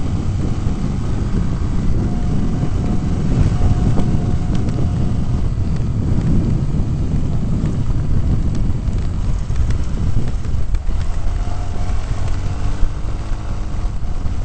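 Vehicle driving off-road: a steady, loud low rumble of engine and rough ground, with scattered knocks and rattles and wind buffeting the microphone.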